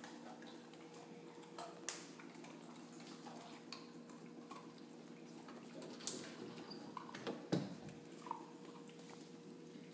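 A dog moving about on a tile floor: scattered light clicks and taps of claws and a chew treat on the tiles, the loudest a little past halfway, over a faint steady hum.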